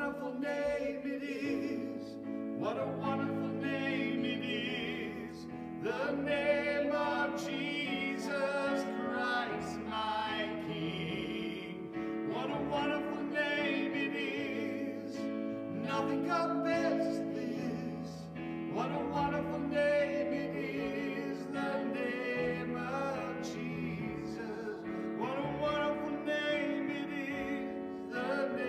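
A woman singing with vibrato, accompanied by sustained chords on a Yamaha electronic keyboard.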